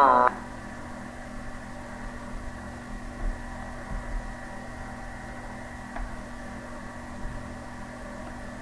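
Steady background hum and hiss, with a faint click about six seconds in.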